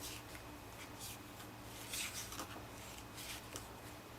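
Faint rustling of paper cards being handled, a few soft brushes and slides scattered through, over a low steady hum.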